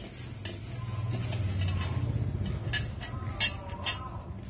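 Bronze ornaments being handled and knocking against each other as a pair is lifted off the floor. A low rubbing rumble is followed by three or four sharp metallic clinks in the second half.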